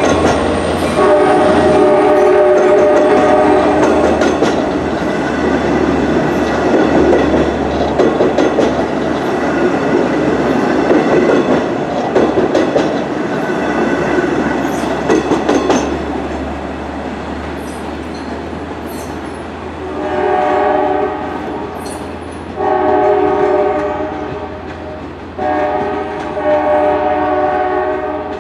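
Long Island Rail Road train of C3 bilevel coaches hauled by a diesel locomotive: the locomotive's multi-tone horn sounds for about four seconds as the coaches pass close by, then the cars rumble past with wheels clacking over the rail joints. In the last third the horn sounds again, fainter, in the grade-crossing pattern of long, long, short, long.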